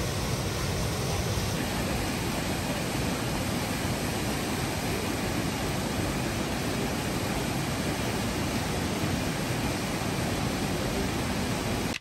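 Steady rushing and splashing of a waterfall cascading down a rocky gorge into a pool, an even roar of falling water that holds at one level throughout.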